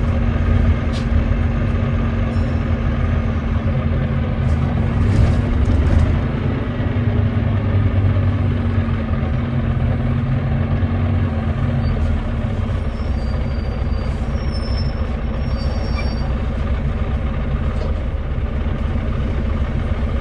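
Volvo D9B 9.3-litre diesel engine of a Volvo B9TL double-decker bus running steadily under way; the engine has a misfire. The drone peaks about six seconds in, then eases slightly and stays even.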